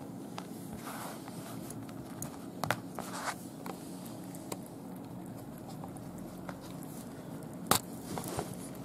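Cat chewing raw day-old chicks: scattered wet crunches and clicks, the loudest one near the end, over a steady low hum.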